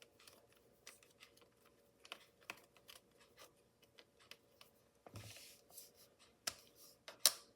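Faint, scattered clicks and scrapes of a small screwdriver working screws and laptop parts being handled, with a short rustle about five seconds in and a sharper click near the end.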